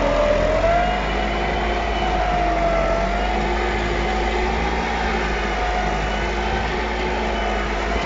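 Massey Ferguson 375 tractor's diesel engine working hard under full load, pulling a five-tine chisel plough deep through hard soil. Its steady note wavers slightly up and down over a low rumble.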